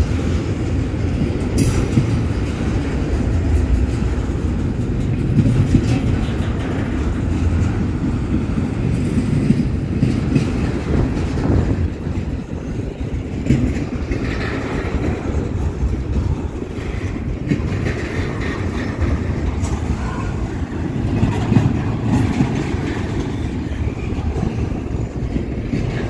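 Double-stack intermodal freight train of container-laden well cars rolling past close by: a steady rumble of the cars' wheels on the rails, with occasional clacks.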